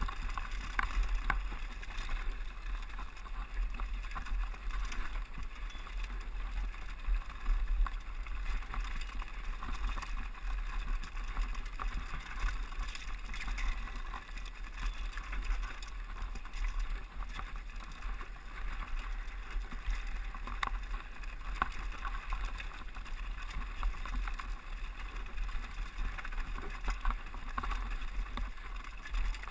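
Mountain bike running fast down a loose rocky trail: tyres crunching over gravel and stones, with many small clicks and knocks from the bike, under a steady low wind rumble on the helmet-mounted camera's microphone.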